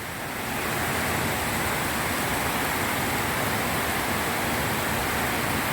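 Heavy rain falling, a steady dense hiss that swells slightly about half a second in.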